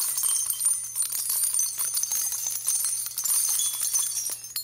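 Bright, high tinkling jingle, like small bells, that runs on with a faint low hum beneath it and dies away near the end.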